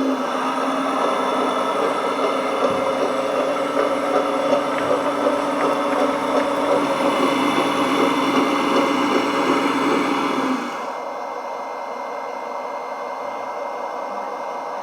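1/14 scale RC hydraulic bulldozer running with a steady mechanical hum. About ten and a half seconds in, the hum drops suddenly to a quieter, steady level.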